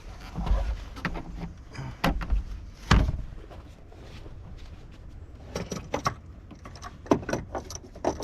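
Handling noises while swapping a car battery: several knocks and light clatter, with the loudest thump about three seconds in and a run of quicker rattling clicks near the end.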